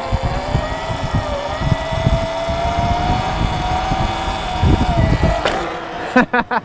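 Sur Ron electric dirt bike's motor whining under throttle, its pitch rising slowly as the bike picks up speed, with wind buffeting the microphone. The whine stops with a short knock about five seconds in.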